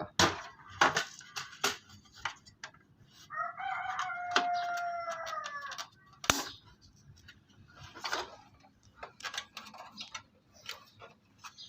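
Sharp plastic clicks and knocks as a desktop computer case cover is worked loose and refitted. A rooster crows once in the background a few seconds in, one call lasting about two and a half seconds.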